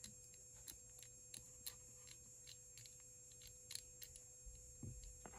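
Faint, irregular clicking of a TSA luggage lock's combination dials being turned by hand, scrambling the combination.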